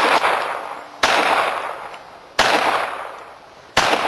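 Four handgun shots fired at a steady pace, a little over a second apart, each followed by a long echo that fades out.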